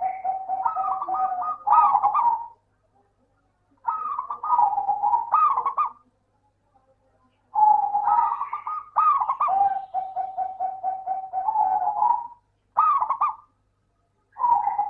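Zebra dove (perkutut) cooing: phrases of quick, rolling coos, the longer ones ending on a held lower note, broken by pauses of a second or two.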